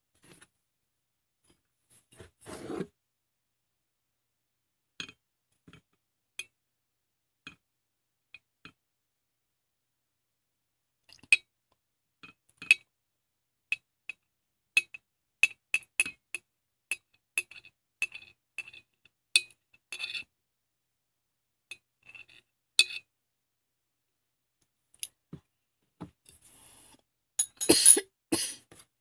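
Metal spoon clinking against a glass goblet as yogurt is scooped from a jar into it: scattered sharp clinks, coming quickest in the middle, with a louder clatter near the end.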